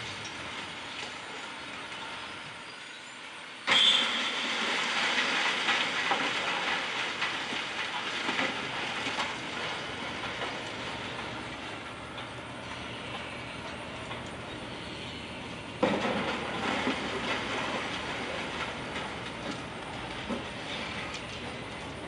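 Wrecking ball striking a steel-and-concrete building twice, about twelve seconds apart. Each sudden hit is followed by several seconds of clattering, rumbling debris and rubble falling and settling.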